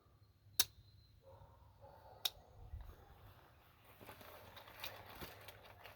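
Faint handling of a pocketknife, with two sharp clicks about a second and a half apart and soft rustling after them.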